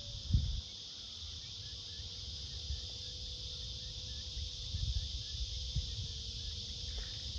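Steady shrill drone of insects, with wind buffeting the microphone and a short bump about half a second in. Under it, a faint steady whine from the distant RC jet's twin electric ducted fans, dipping slightly in pitch near the start.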